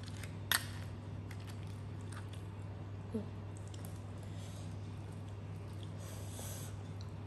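Fingers picking apart sauced crab, with a few sharp clicks of crab shell and soft wet rustling, and faint chewing, over a steady low hum.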